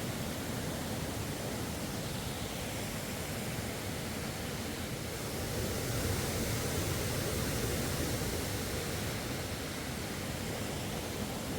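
Steady rushing water noise, an even hiss and rumble without breaks, swelling slightly about halfway through.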